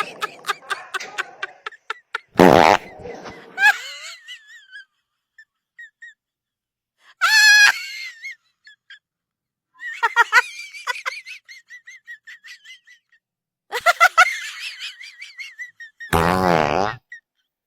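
Fake fart sound effects: two loud, buzzy blasts of about half a second to a second, one a couple of seconds in and one near the end. Between them come a short high squeal and bursts of laughter.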